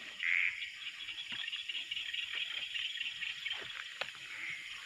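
Night chorus of small frogs calling, a steady high pulsing chirr, with one louder call just after the start and another near the end. There are faint rustles of movement through the grass.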